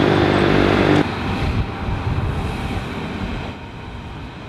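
City street traffic. A loud engine drone dominates for about the first second and cuts off abruptly, followed by a wash of passing-traffic noise that drops lower about three and a half seconds in.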